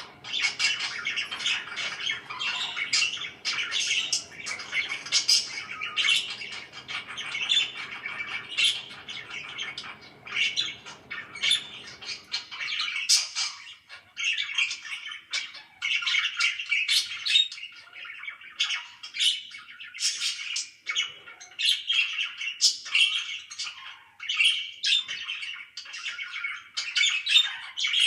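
Pet parakeets chattering, with a dense run of overlapping chirps and squawks and no pauses. A faint low background hum under the birds stops about twelve seconds in.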